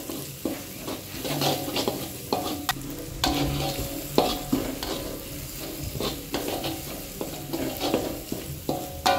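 Metal spatula scraping and clinking irregularly against a wok, some strokes with a brief metallic ring, over the steady sizzle of ground spice paste frying in oil. The paste is being sautéed until fully cooked.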